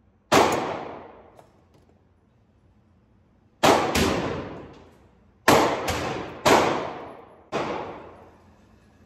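Ruger 57 pistol firing 5.7×28mm rounds: about six shots, one a little after the start and the rest in an uneven string from about three and a half seconds in, some in quick pairs. Each shot carries a long echo off the walls of the indoor range.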